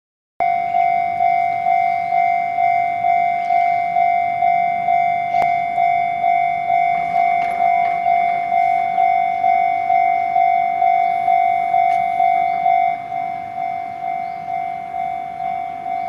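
Japanese railway level-crossing alarm: an electronic bell ringing over and over, about twice a second, warning of an approaching train while the barrier arms come down. It turns quieter about thirteen seconds in.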